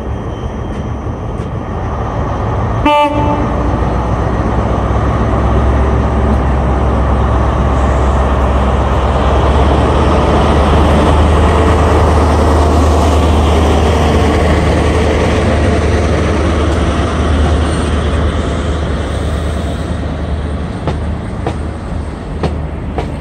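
A Class 43 HST diesel power car gives a short horn toot about three seconds in, then pulls away past with a deep engine rumble that builds, peaks as it passes and fades. Near the end the Mark 3 coaches roll by with a few wheel clicks.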